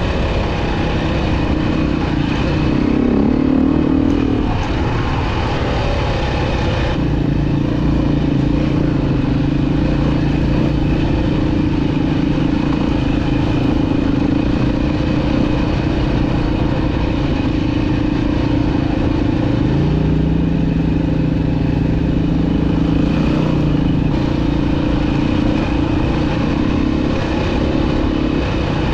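Dirt bike engine running steadily under way on a trail, its note shifting a few seconds in and again about two-thirds of the way through, over a steady rush of noise.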